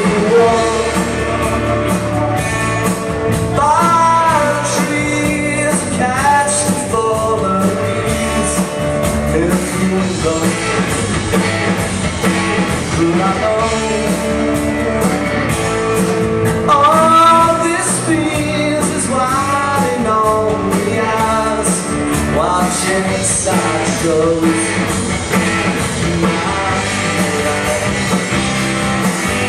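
Live rock band playing: guitar and drums over a steady beat, with a voice singing in phrases.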